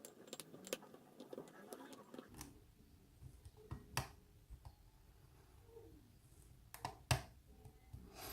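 Lock pick and tension wrench working the pin stack of an American Lock 1100 padlock: scattered small metallic clicks and scrapes, the sharpest about seven seconds in.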